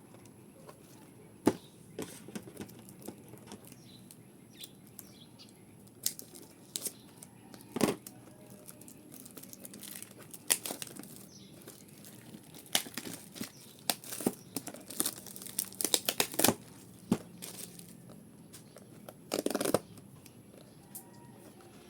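Pokémon card booster box packaging being opened by hand: plastic wrapping crinkling and tearing in scattered bursts, with sharp clicks. The bursts come thickest a little past the middle.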